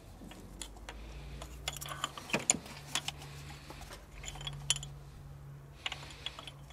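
Small metallic clicks and clinks of a Delphi diesel injector being lowered into its bore in the cylinder head and seated, coming in three short clusters. A low steady hum runs underneath.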